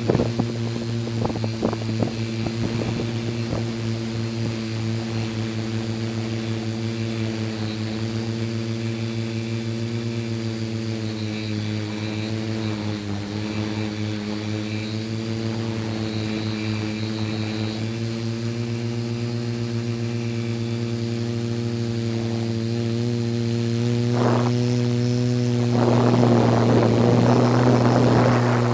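Multirotor drone's motors and propellers humming steadily, the pitch dipping briefly about halfway through. A louder rushing noise joins in near the end.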